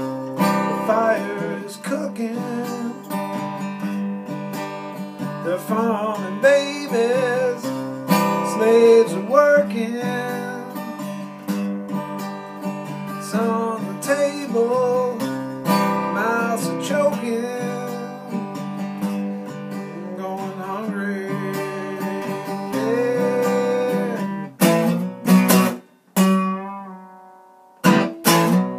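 Takamine steel-string acoustic guitar strummed and picked in a steady chord progression. Near the end it breaks into a few separate strummed chords, each left to ring briefly.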